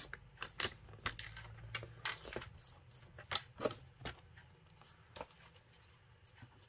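Light, irregular clicks and rustles of a paper trimmer and cardstock being handled: the trimmer's blade head is slid along its rail, and the freshly cut square of patterned paper is lifted out and laid on a mat.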